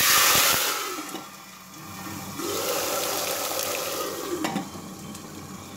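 Water poured into hot ghee and whole spices in a pressure cooker flashes to steam: a sudden loud hiss and spatter that dies down within about a second. A second, longer burst of hissing and bubbling follows about two and a half seconds in.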